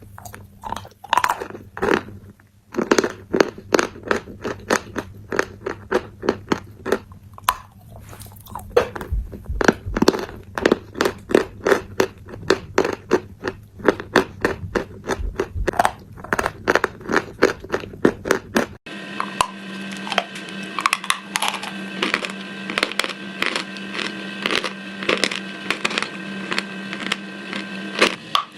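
Close-up crunching and chewing of crisp food, a dense run of sharp crunches throughout. The background hum changes abruptly about two-thirds of the way through.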